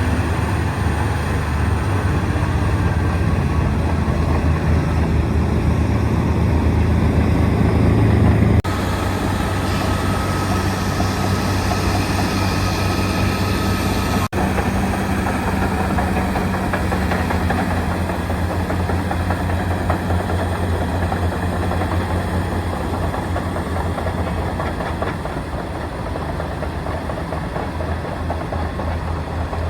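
Komatsu D275AX bulldozer's diesel engine running steadily while the dozer works. The sound drops abruptly about a third of the way through and cuts out for a split second near the middle.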